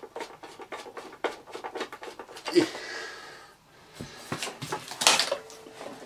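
Clicks, taps and light knocks of a vintage Hoover Senior upright vacuum's metal body, hood and screwdriver being handled as the machine is reassembled. There is a short breathy sound near the middle and a brief pause just before the last clatter.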